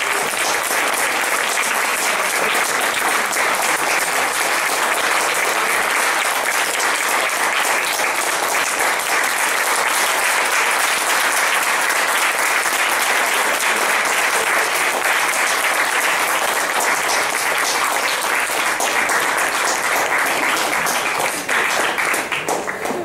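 Loud, sustained applause from a crowd of many people clapping, steady throughout and dying away in the last second.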